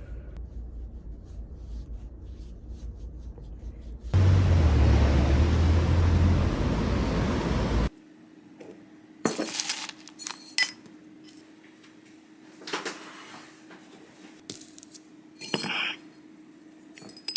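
Small clinks and knocks of glass and dishes. About four seconds in, a loud, even rush of noise over a low hum runs for nearly four seconds and cuts off suddenly.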